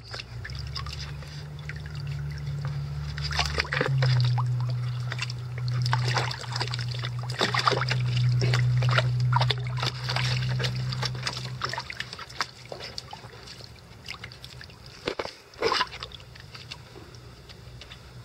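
Icelandic Sheepdog puppies splashing and wading in a plastic wading pool, water sloshing and splattering in quick irregular splashes, busiest in the middle and tailing off after about twelve seconds, with one sharp splash near the end. A steady low hum sits underneath and stops about twelve seconds in.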